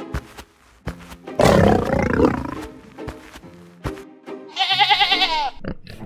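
A lion roar sound effect about a second and a half in, over background music, followed near the end by a shorter high, wavering call.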